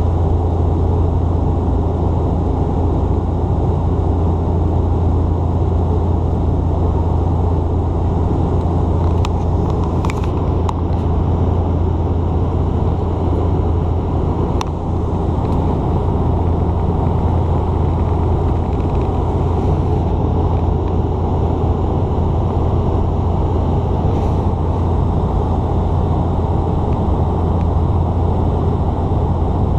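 Steady cabin noise of a De Havilland Dash 8 Q400 turboprop airliner in flight: an even, deep drone from its two propeller engines under a rushing hiss. A few faint clicks come about a third and halfway through.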